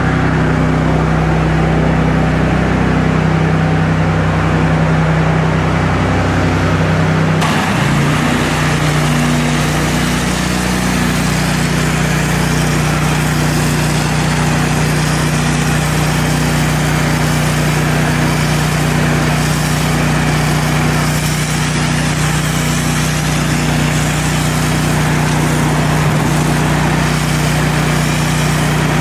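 Pressure washer engine running at a steady pitch. About seven seconds in, a steady hiss of spray abruptly joins it and continues.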